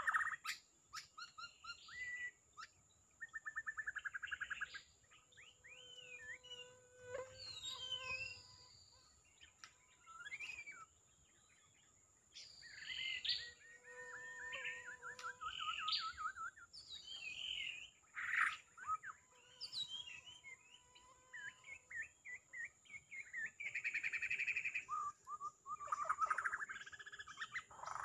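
White-rumped shama singing: a long series of varied phrases of clear whistles, rising and falling notes and fast rattling trills, with short pauses between them. A steady high tone runs underneath.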